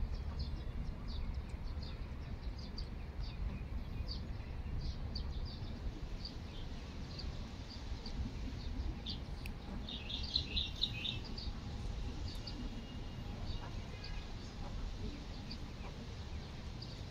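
Small birds chirping: short high chirps scattered throughout, with a quick run of calls about ten seconds in, over a steady low rumble.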